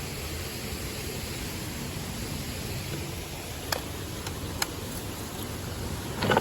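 Mountain stream rushing steadily. A few sharp clicks come a little past halfway, and there is a louder knock near the end.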